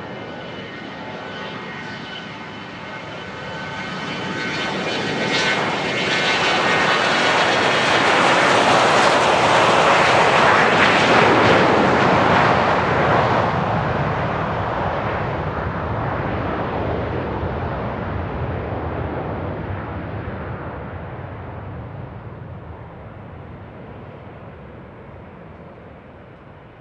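A private jet's engines passing by: a high whine at first, then a roar that swells to its loudest about ten seconds in and slowly fades away.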